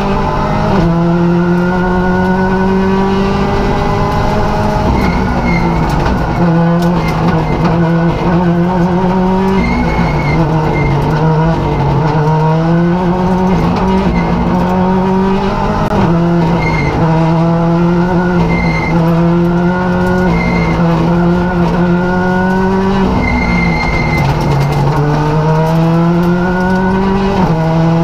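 Rally car engine heard from inside the cockpit, pulling hard with its pitch climbing through each gear and dropping at every upshift, several times over, with road and tyre noise underneath.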